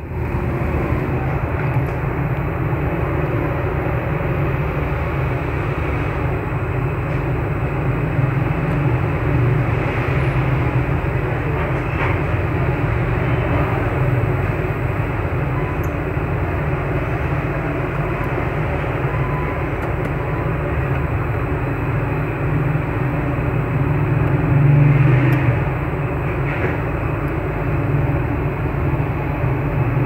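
Steady background rumble with no distinct events.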